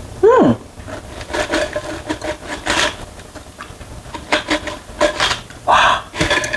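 Pringles crisps being shaken out of their cardboard tube into a steel tray: a run of irregular scraping, rattling rustles as the stacked chips slide out and drop. About a quarter second in there is a short, loud sound that falls in pitch.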